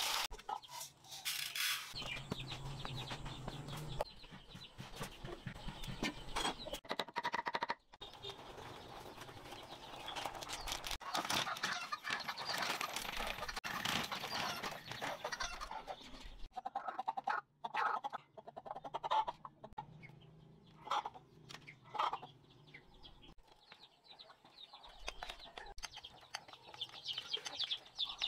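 Chickens clucking, mixed with scattered clicks and knocks.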